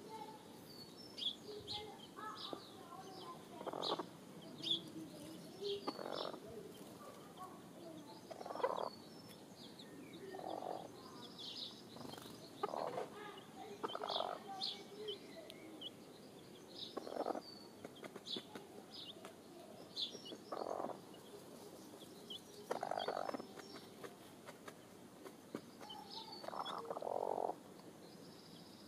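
Chicken chicks peeping in short high chirps beside a dust-bathing hen, with short scratchy bursts every two seconds or so.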